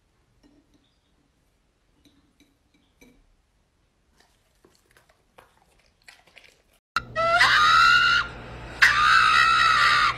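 A few faint clicks, then a pug letting out two long, loud, human-sounding screams, each about a second long, over a steady hum.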